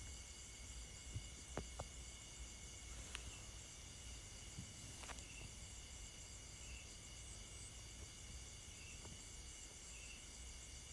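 Faint steady chorus of insects chirping, with a few soft clicks in the first five seconds.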